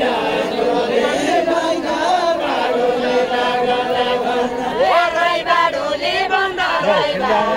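A group of voices singing a Deuda folk song together, unaccompanied, in long drawn-out notes.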